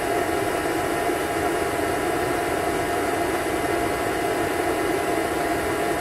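Vacuum cleaner running steadily: an even rush of air with a constant motor whine held at one pitch.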